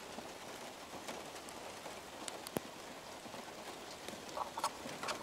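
Steady rain falling: an even hiss with scattered drop ticks, and a couple of sharper drop clicks about two and a half seconds in.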